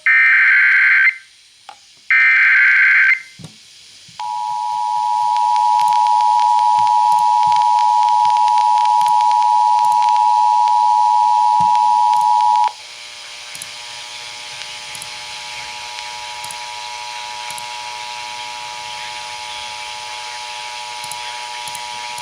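Emergency Alert System broadcast: two short bursts of the screeching digital header data, then the steady two-tone attention signal for about eight seconds. It cuts off abruptly into a steady buzzing hum over static hiss.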